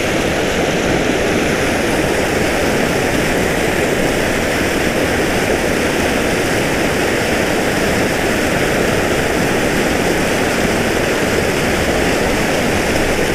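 Loud, steady rush of water pouring out of a large spill pipe into a river under heavy flow.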